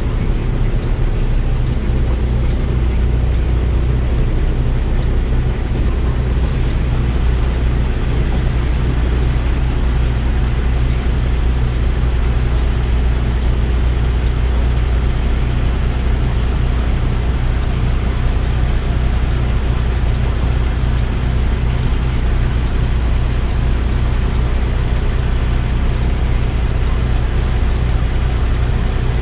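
Semi-truck's diesel engine running steadily, heard from inside the cab as a loud, even low drone.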